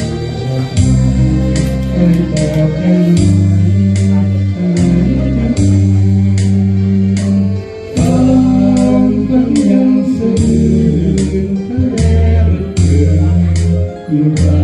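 Band music without vocals: a guitar line over sustained bass notes and a regular drum and cymbal beat.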